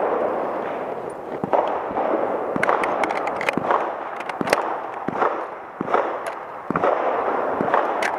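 Gunfire from an AR-15 carbine in .300 Blackout: a dozen or so sharp shots at uneven spacing, each with a short echo.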